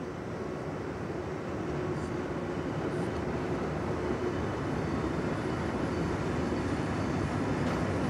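Siemens Vectron electric locomotive and its freight wagons passing: a steady rolling rumble of wheels on rail with a faint steady tone, growing louder.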